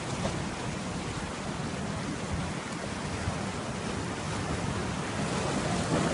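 Sea waves washing in, a steady rush of surf noise that swells a little near the end.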